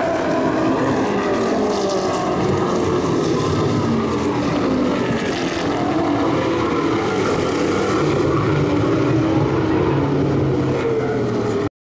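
Several race-prepared muscle cars lapping at racing speed, their engines working hard, with pitch rising and falling as they accelerate out of and lift into corners. The sound cuts off suddenly near the end.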